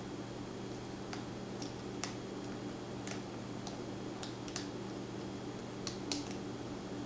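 Lock pick working the pins of a pin-tumbler challenge lock during single-pin picking: a scatter of small, sharp clicks at irregular intervals, over a steady low hum.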